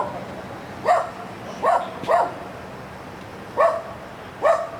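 A dog barking: five short barks, each dropping briefly in pitch, in two loose groups with a pause of about a second and a half between them.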